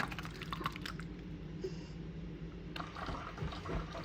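Quick light clicks and taps in the first second, then softer scraping and rustling, over a steady low hum: kitchen utensils being handled at the stove.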